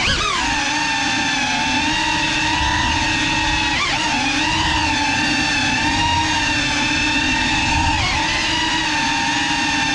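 GEPRC CineLog 35 cinewhoop's motors and ducted propellers whining steadily in flight, the pitch swooping up and down briefly with throttle changes just after the start, about four seconds in and again about eight seconds in.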